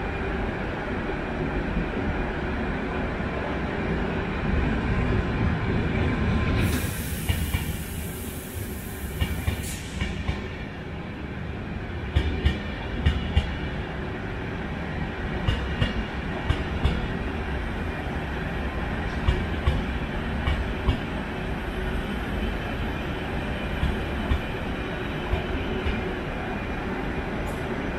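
ČD railjet passenger train rolling in along the platform with a steady low rumble. About seven seconds in there is a burst of hiss lasting about three seconds. Then the wheels click sharply at uneven intervals over rail joints as the coaches pass.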